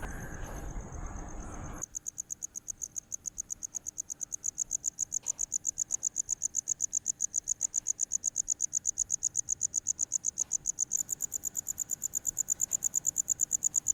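Crickets chirping in a rapid, even pulsed trill, about five high-pitched pulses a second, louder over the last few seconds. A noisier background cuts off abruptly about two seconds in, where the clean cricket recording begins.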